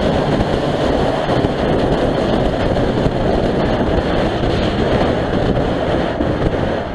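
Off-road vehicle engine running steadily while riding, with wind noise on the microphone.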